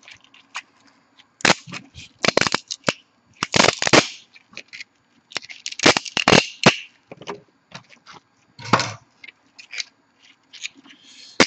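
3D-printed plastic support material being snapped and broken off a printed part by hand: a run of sharp cracks and crackling snaps in irregular clusters.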